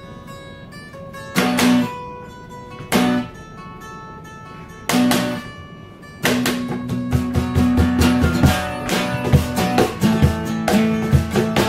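Acoustic guitars playing a song: soft picked notes, then three strummed chords each left to ring, then from about six seconds in steady rhythmic strumming joined by cajon beats.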